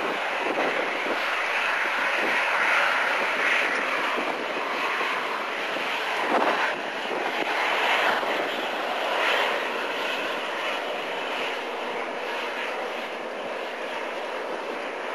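Boeing 737-800 airliner taxiing past, its CFM56-7B turbofan engines at taxi power giving a steady jet rush that swells slightly about six seconds in.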